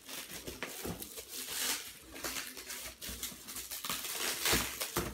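Clear plastic wrap on a boxed tripod crinkling and tearing as it is pulled off by hand, in irregular crackly rustles with a few dull knocks from the box being handled.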